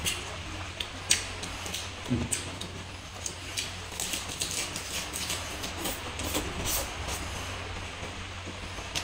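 Close-up eating sounds: chewing and crunching of fresh lettuce and spicy noodles eaten by hand, with many short, crisp crackles over a steady low hum.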